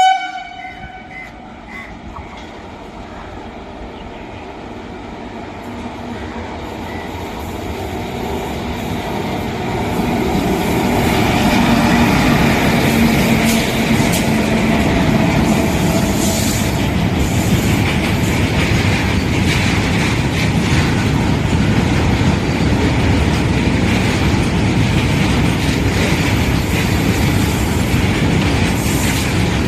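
Goods train of BTPN oil tank wagons behind WAG-7 electric locomotives running through at about 50 km/h. A short horn blast cuts off right at the start, then the rumble grows louder over about ten seconds as the train nears. The locomotives pass with a low steady hum, and the tank wagons' wheels then clatter steadily over the rail joints.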